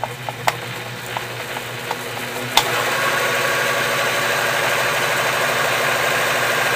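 Pfaff 1222 sewing machine driven by its brushed AC motor, starting up and speeding up with a few sharp clicks, the sharpest about two and a half seconds in. It then runs steady and louder at full speed, with a faint whine over the hum. The motor's commutator was cleaned up and the motor is working properly under load.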